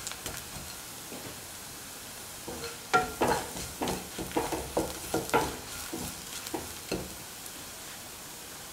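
Sliced shallots and dried red chillies sizzling in hot oil in a pan, sautéing toward golden brown. A spatula scrapes and stirs them in a quick run of strokes through the middle, with the steady sizzle alone at the end.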